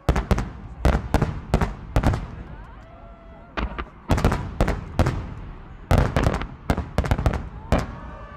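Aerial firework shells bursting in rapid salvos: a string of sharp bangs, often several in quick succession, then a short lull and another cluster.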